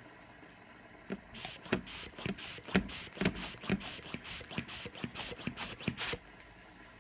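Hand balloon pump blowing rapid puffs of air at a fidget spinner: short hissing blasts, about four a second, starting about a second in and stopping shortly after six seconds.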